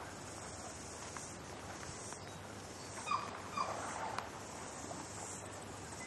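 Steady outdoor hiss with a few faint, short bird calls a little after the middle.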